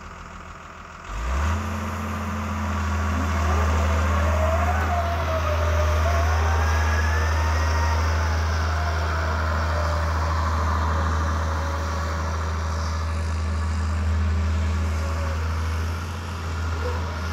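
Doosan EX100 excavator's diesel engine running steadily, coming in loudly about a second in, with a fainter higher whine that wavers up and down in pitch over it.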